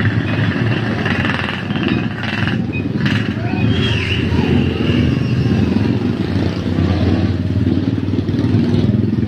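Tour bus engines running close by in a steady low rumble as the buses pull in.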